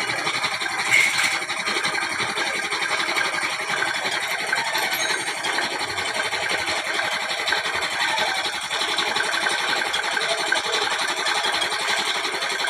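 Steady mechanical running noise from a machine or motor, at an even level throughout.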